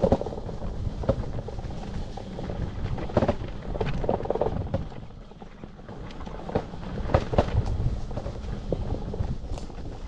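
Vector Vortex electric bike riding over rough ground: a steady low rumble of wind and rolling noise, broken by scattered knocks and rattles.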